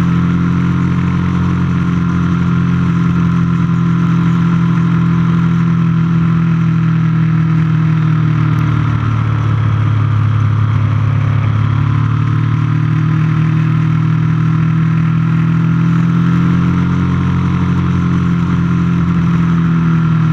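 Onboard sound of a Triumph motorcycle's engine running at road speed with wind noise. The engine note drops about halfway through, then builds again.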